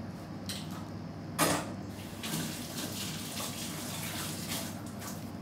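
A sharp clank about a second and a half in, then a kitchen tap running into a stainless-steel sink for a few seconds.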